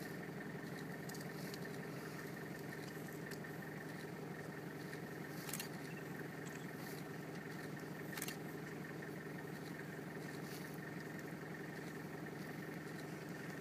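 Vehicle engine idling steadily, with two faint clicks partway through.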